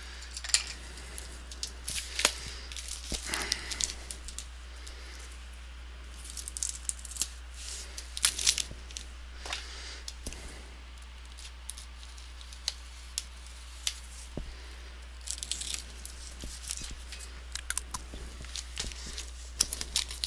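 Cardboard shipping box being handled and turned over: irregular scrapes, taps and rustles of cardboard and packing tape, with a few sharper knocks.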